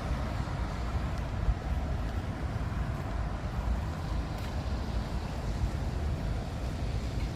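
Wind rumbling on the microphone over a steady hiss of outdoor street ambience.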